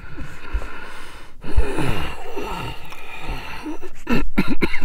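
An elderly man groaning and gasping for breath, with a few sharp short sounds near the end.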